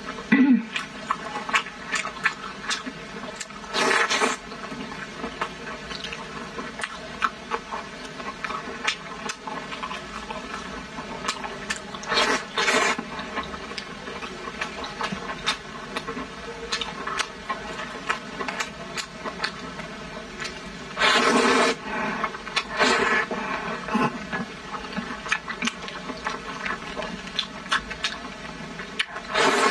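Close-miked eating: wet chewing and mouth sounds on braised pork belly and glass noodles, broken by a handful of louder, wetter slurps lasting a second or so each, the longest about 21 seconds in.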